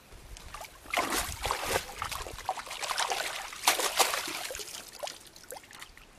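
Hands splashing and sloshing in shallow stream water, rinsing mud off a freshly dug-out crab, in irregular bursts from about a second in until near the end.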